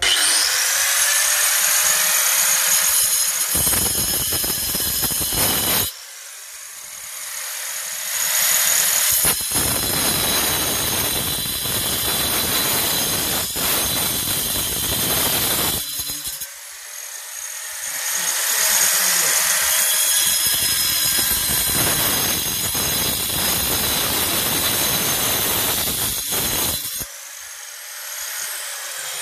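Angle grinder with a diamond disc cutting a groove into stone: a high steady whine as the disc spins free, broken by three long spells of loud, gritty grinding as the disc bites into the stone. The groove is being deepened so that the stone will break off along it.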